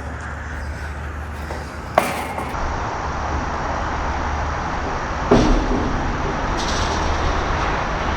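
A vehicle engine running steadily, with a sharp click about two seconds in and a heavier thump a little after five seconds.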